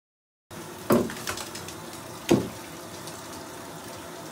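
Steady rush of water in a filled bathtub, starting about half a second in, broken by two loud splashes about a second and a half apart as bath bombs plop into the water.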